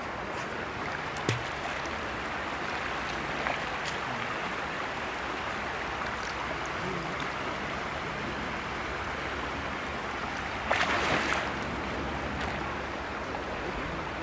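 River water lapping and trickling close to the microphone, held steady. A short, louder splash in the water comes about eleven seconds in.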